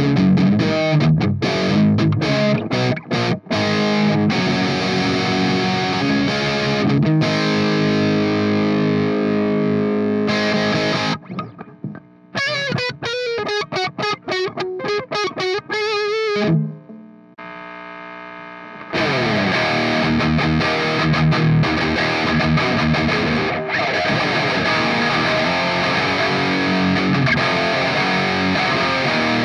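Tagima Seattle 2 electric guitar played through a NUX MG-30 modeler's distorted amp and cab simulation. A choppy, stop-start chord riff and ringing chords give way to a quieter single-note lead line that ends on a wavering note. After a short drop to a faint held tone, full distorted chords come back for the rest.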